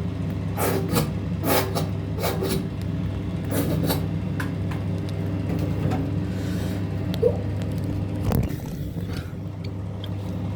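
Hands rubbing and squishing shampoo during a dog's bath: a series of short rasping rubs in the first few seconds, then slower handling, over a steady low hum. A brief sharp knock comes about seven seconds in.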